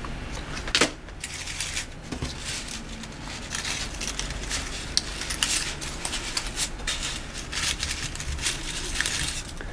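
Paper leaves and paper flowers rustling and crackling against a twig wreath as hands push a leaf in among them, with many small irregular crinkles and one sharper click a little under a second in.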